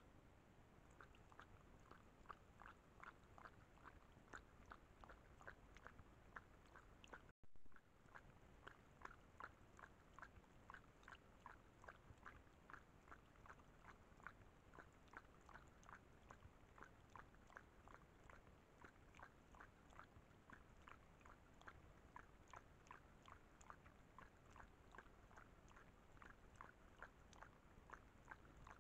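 Puma lapping water from a small pool, a faint, steady rhythm of wet tongue-laps at about three to four a second.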